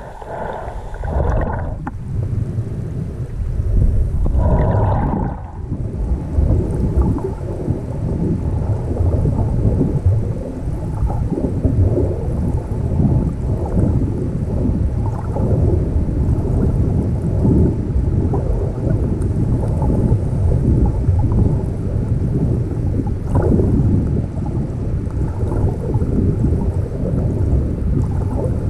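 Water sloshing and gurgling against a GoPro in its waterproof housing during a swim in the sea, heard as a loud, gusty, muffled low rumble. Two brief higher-pitched sounds come in the first few seconds.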